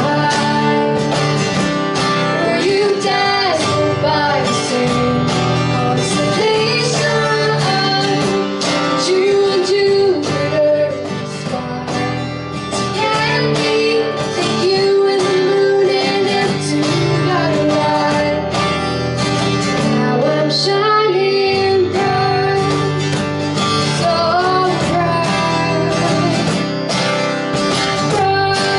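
Live acoustic band playing a song: two strummed acoustic guitars and a cajon, with a woman singing lead.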